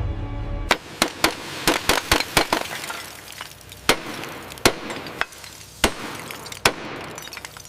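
Music stops under a second in, giving way to a quick, irregular run of sharp clinks and knocks. These thin out into single strikes about a second apart.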